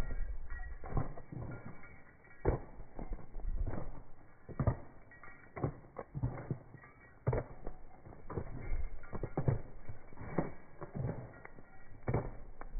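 Leather saddle creaking with the stride of a walking horse, mixed with hoofbeats on pavement: a string of short creaks and knocks about once a second.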